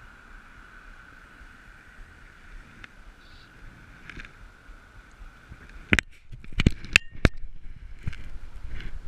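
Steady rush of river water while a hooked grayling splashes at the surface on a fly line. About six seconds in, a quick series of sharp clicks and knocks close to the microphone, with a few lighter ones near the end.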